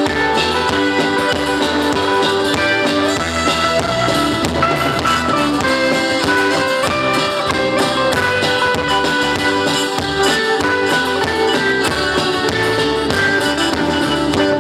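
Band music with no singing: an instrumental passage of guitar over a drum kit, at a steady loud level.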